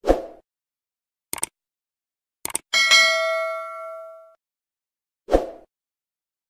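Short edited sound effects: a soft thud, a couple of quick clicks, then a bright bell-like ding with several ringing pitches that fades over about a second and a half. Another soft thud comes near the end.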